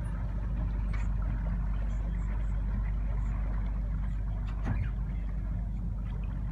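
Canal tour boat's engine running steadily under way, a low even drone with a wash of water noise over it and a few faint clicks.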